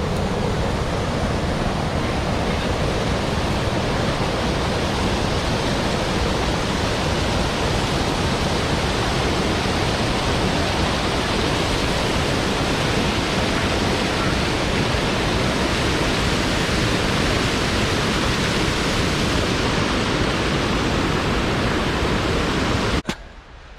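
Water pouring over a small river weir: a loud, steady rushing that cuts off suddenly near the end.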